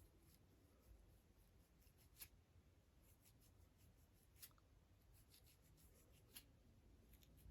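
Faint scratching at a dandruff-flaked scalp: quick dry scratchy strokes, with three sharper ones about two seconds apart.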